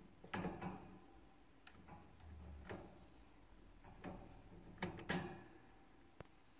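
Hamster gnawing at a seed treat stick hung on its wire cage: faint, irregular crunching clicks, several spread over the seconds with no steady rhythm, the loudest about half a second in and again about five seconds in.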